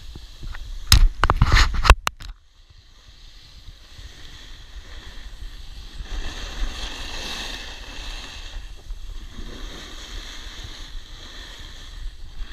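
Wind rumbling on the microphone and the steady hiss of edges sliding over snow, with a few loud sharp knocks about a second in.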